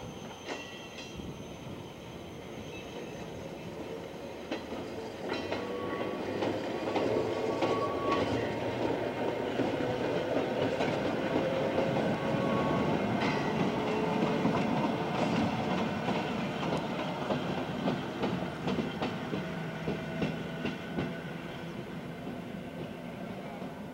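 Tobu Railway boxcab electric locomotive and brake van rolling past: wheels clicking over rail joints, with a motor whine that rises slowly in pitch as it gathers speed. The sound swells to its loudest about halfway through, then eases as the train draws away.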